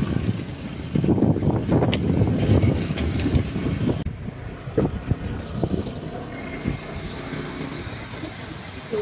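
Gusty wind buffeting the microphone in rumbling gusts, strongest in the first few seconds and easing after about four seconds.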